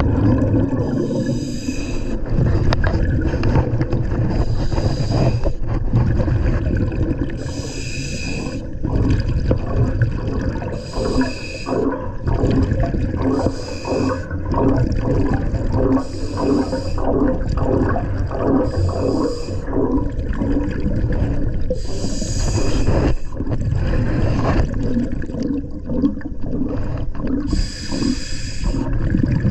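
A scuba diver breathing through a regulator underwater: hissing breaths and gurgling exhaust bubbles repeating every two to three seconds.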